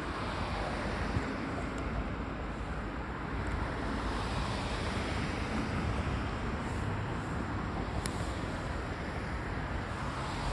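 Wind buffeting the microphone outdoors: a steady low rumble with a couple of faint ticks.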